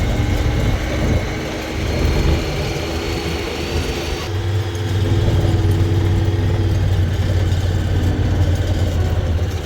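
An engine running steadily with a low hum, changing abruptly about four seconds in.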